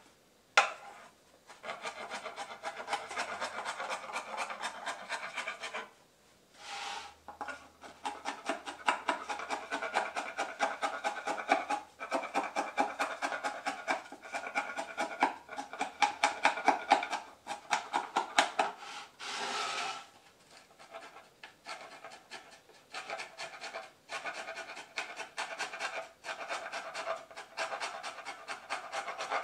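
Hand file scraping across a board of recycled synthetic (plastic composite) decking in quick back-and-forth strokes, several a second, with brief pauses between runs of strokes.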